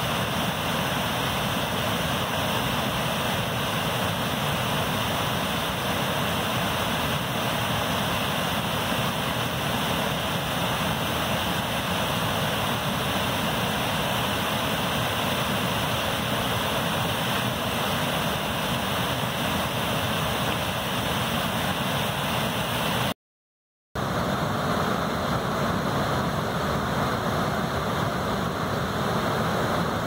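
River cascade: white water pouring over a low rocky ledge into a pool, a constant, loud rushing. It drops out completely for under a second about three-quarters of the way through, then resumes.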